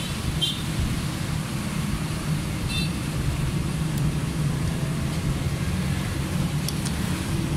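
Steady low rumble of vehicle traffic in the background, with a few faint light metallic clicks, one with a brief ring, as small valve parts are pressed into place on a car cylinder head by hand.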